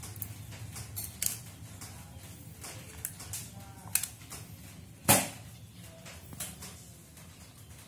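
A hard-boiled egg being peeled by hand over a plastic bowl: scattered small clicks and crackles of shell being picked off and dropped, with one louder sharp knock about five seconds in.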